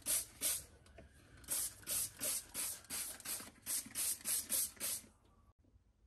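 Hand spray bottle squirting water in quick repeated pumps, about three squirts a second, onto the iced-up freezer fan housing to melt the ice. It stops about five seconds in.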